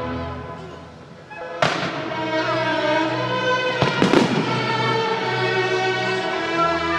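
Fireworks going off over music with long held notes: sharp bangs about one and a half seconds in and a cluster of them around four seconds in.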